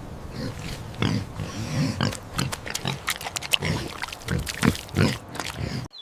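Pig grunting repeatedly: a string of short, low grunts at an uneven pace that stops abruptly near the end.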